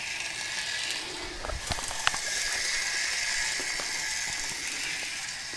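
Small model train locomotive running along the track: a steady whirring hiss of its electric motor and wheels on the rails, with a few faint clicks.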